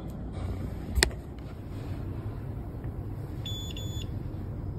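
A couple of short, high electronic beeps from a TOA RM-300X paging microphone console as its buttons are pressed, near the end, over a steady low room hum, with a single sharp click about a second in.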